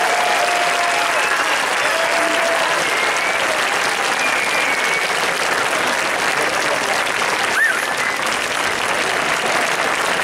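Audience applauding steadily, with a few voices calling out over it.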